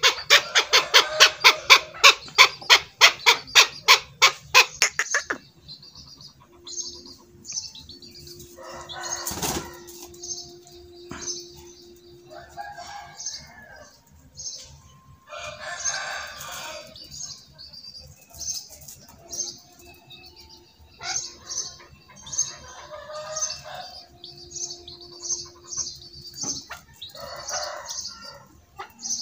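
Chukar partridge calling a fast, even run of loud chuk notes, about six a second, for the first five seconds; after that softer clucks and repeated high chirps, with a single knock about nine seconds in.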